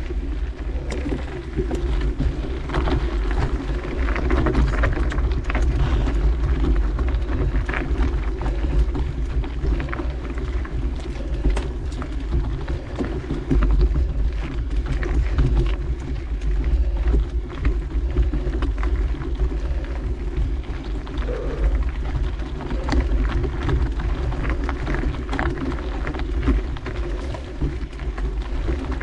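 A steady low rumble of wind buffeting the microphone, with many scattered clicks and crunches from travel over a dirt trail on a climb.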